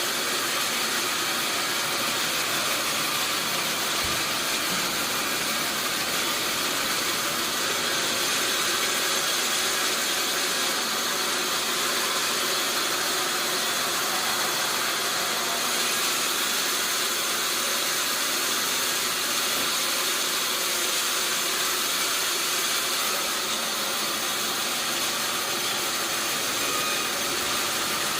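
Sawmill machinery running steadily, a constant high, hissing mechanical noise with no breaks.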